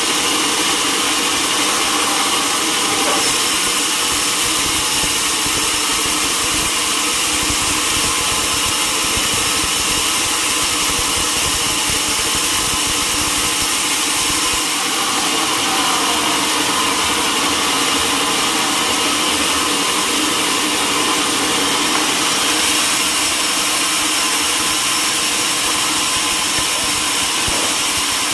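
Sawmill machinery running steadily and without a break.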